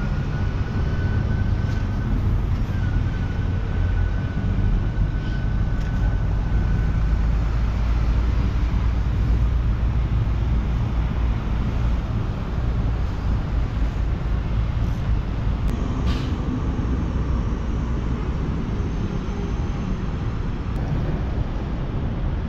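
Steady outdoor noise on a rock breakwater by the sea: a heavy, fluctuating low rumble of wind on the microphone, with waves washing on the rocks. A thin faint whistle runs through the first several seconds.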